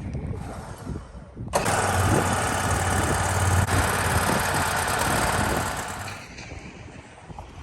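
An engine starts suddenly about a second and a half in and runs loudly for about four seconds with a low hum and hiss, then dies down.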